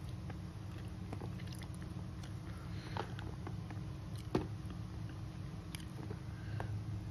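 Close-miked eating sounds from a meal of rice and fried duck eaten by hand: chewing with scattered small clicks and wet smacks, and one sharper click about four seconds in. A steady low hum runs underneath.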